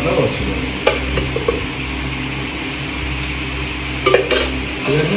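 Metal serving ladle clinking against a brass plate and a steel bowl as curry is served onto rice: a few sharp clinks about a second in and a quick cluster about four seconds in, over a steady low hum.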